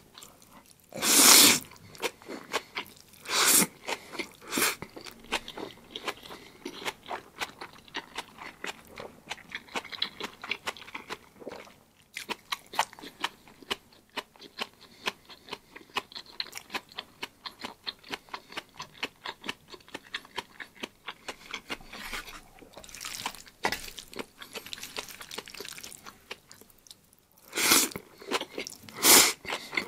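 Mouth sounds of eating black bean sauce noodles: a run of fine, wet chewing clicks, broken by loud slurps of noodles twice near the start and twice near the end.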